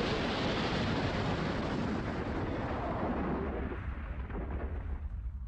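Dramatised crash explosion sound effect: a dense rumbling roar from an airliner hitting swamp water, dying away, its hiss fading out over the last two seconds.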